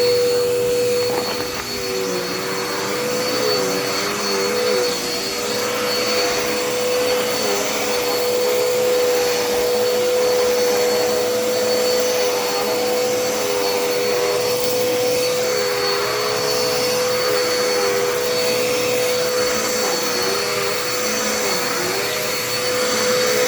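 Dirt Devil Endura Reach bagless upright vacuum running steadily, a constant motor whine over the rush of airflow, its pitch wavering slightly as it is pushed back and forth across the floor.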